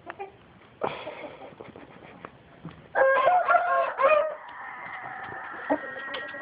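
Rooster crowing once: a loud call of about a second and a half starting about three seconds in, amid scattered short chicken clucks. A faint steady high tone follows the crow.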